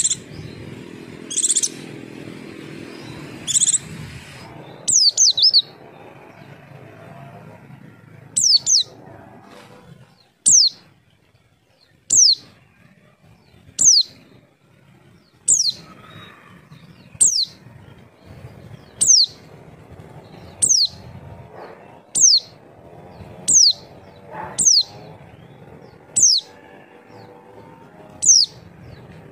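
White-eye (pleci) calling: a high, thin call that falls sharply in pitch, repeated about every second and a half to two seconds, after a few short high chirps at the start. It is a lure call, played to get other white-eyes to answer.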